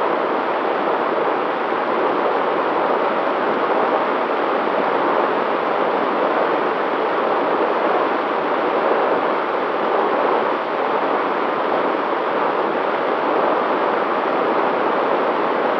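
Steady rush of wind and propeller noise on an FPV aircraft's onboard camera microphone in cruising flight, with a faint steady hum underneath.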